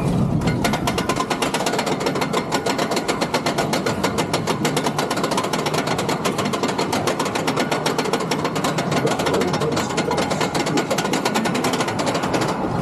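Roller coaster mechanism clacking rapidly and evenly for about twelve seconds, then stopping abruptly near the end, with wind noise underneath.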